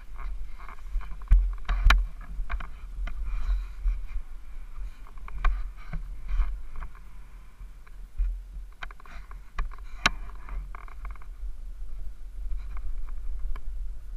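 SSR150 four-stroke pit bike heard through a helmet-mounted camera: a muffled, low rumble of engine and wind buffeting, with scattered knocks and clicks, the loudest about two seconds in and again about ten seconds in.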